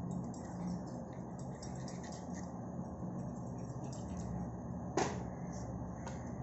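A kitchen knife scoring raw tilapia, giving faint small scraping and cutting clicks against the scaled skin, with one sharper click about five seconds in, over a steady low hum.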